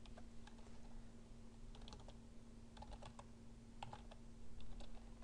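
Computer keyboard being typed on: faint scattered keystrokes in short irregular runs, most bunched together near the end, over a faint steady hum.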